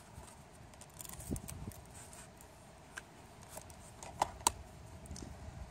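Cardstock being handled and laid down on a table, with a few light clicks and taps and two sharper clicks about four seconds in.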